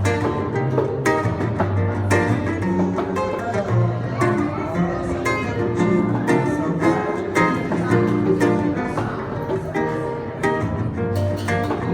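Acoustic guitar (violão) strummed in a steady rhythm, playing instrumental music.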